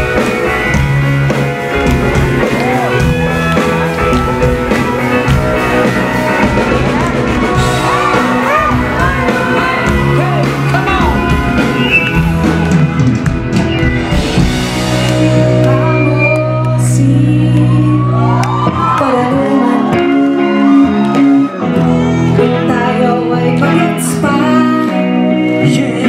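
Live band playing a pop-rock song, with a woman singing over guitar, keyboards and drums.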